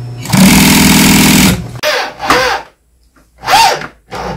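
An industrial sewing machine runs loudly and steadily for about a second. It is followed by several short bursts from a power drill-driver, its whine rising and falling, as it works on a wooden dining chair frame.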